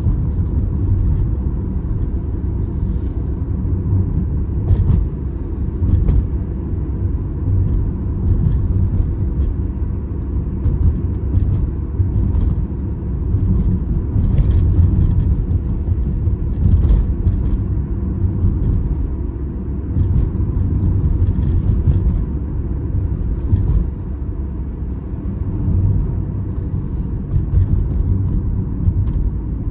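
Opel Astra H on the move: a steady low rumble of engine and tyre noise, with scattered light clicks and rattles.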